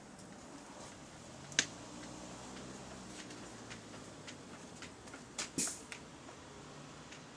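A stationary Volvo bus's air system making its random noises over a low steady hum. There is a sharp click about a second and a half in, scattered small ticks, and a short hiss of released air about five and a half seconds in.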